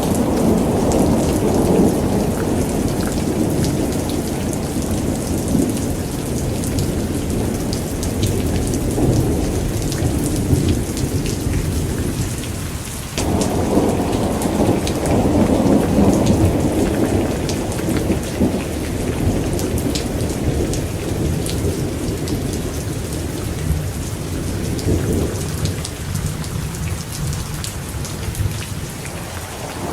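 Thunderstorm: steady rain with long rolls of low thunder rumbling beneath it. A fresh roll breaks in abruptly about halfway through, and the rumble dies down near the end.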